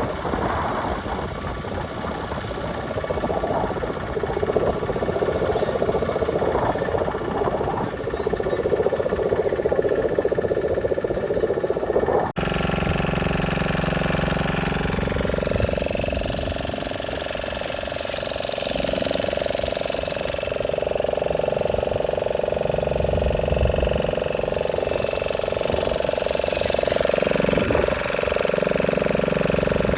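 Motorboat engine running steadily with a rough, knocking rumble; the sound breaks off abruptly about twelve seconds in and picks up again as a smoother, steady hum.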